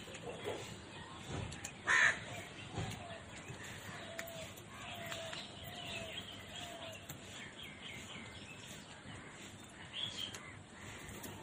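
Birds calling repeatedly: a loud harsh call about two seconds in, then a run of four short, slightly falling calls, with higher chirps later.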